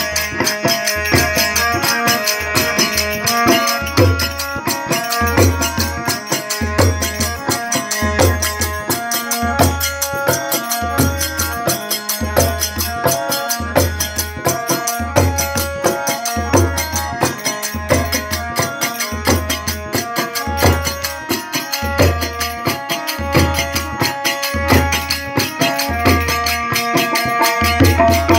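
Live Rajasthani devotional music: a harmonium playing held notes over a hand-drum rhythm, with a deep bass stroke about every 1.3 seconds.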